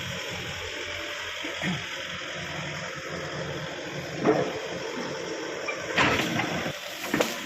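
Backhoe engine running under a steady hiss, with a few sharp cracks and knocks in the second half, the loudest about four seconds in.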